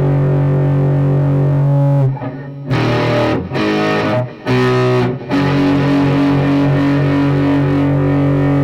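Distorted electric guitar with Fleor Alnico 5 humbucker pickups. A chord rings and is held, then there is a quick run of changing chords from about two to five seconds in, then another long sustained chord.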